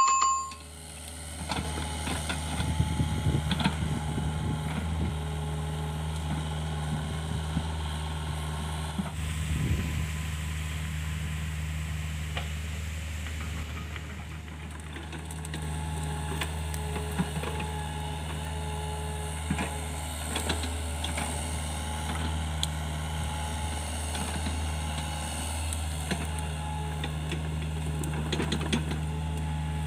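Hitachi mini excavator's diesel engine running steadily under hydraulic load while the arm and bucket dig, with scattered knocks and clanks from the bucket and linkage.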